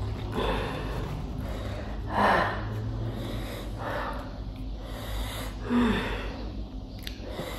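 A person sniffing hard and gasping into a tissue, her nose running from the chilli heat of spicy noodles; about four breathy bursts, the loudest about two seconds in and near six seconds.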